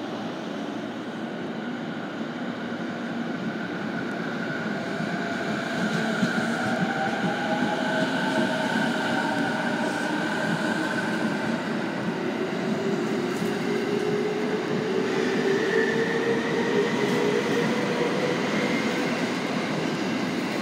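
JR East 209-series electric train pulling out and accelerating past: its VVVF inverter traction motors whine in tones that rise slowly in pitch over the rumble of wheels on rails, growing louder about five seconds in.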